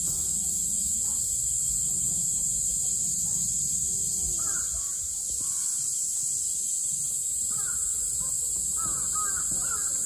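Distant bird calls: a few short calls about four seconds in, another near eight seconds and a cluster near the end. Under them run a steady high-pitched hiss and a low rumble.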